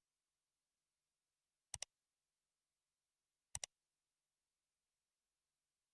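Near silence, broken twice by a brief double click, the two pairs about two seconds apart.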